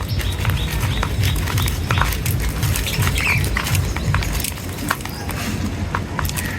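Small birds pecking and scratching at seed, a run of quick, irregular taps, with a faint chirp about three seconds in, over a low rumble.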